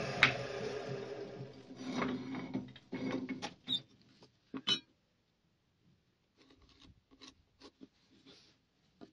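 A table saw's running hum dies away over the first couple of seconds. A few knocks and clicks follow as wood and a round template are set down on the saw table, then light, quiet scratching as a pencil traces a curve on a board.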